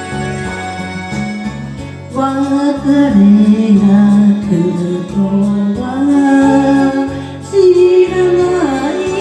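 A song with instrumental accompaniment and a steady bass pulse. About two seconds in, a voice starts singing long, held notes that slide between pitches.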